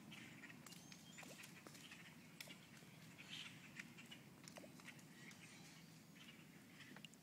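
Quiet outdoor ambience with scattered light ticks and clicks, and faint short high chirps.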